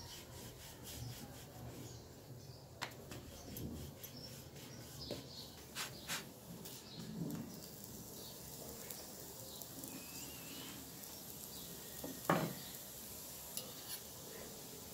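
Light clatter and scraping of kitchen utensils on a tawa as a paratha is cooked, with scattered taps and a sharper knock about twelve seconds in.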